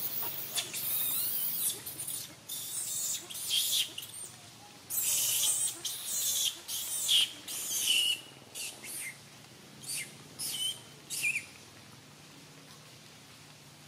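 Macaques giving a run of short, high-pitched squeals and squeaks, several ending in a falling squeak; the calls stop about eleven seconds in.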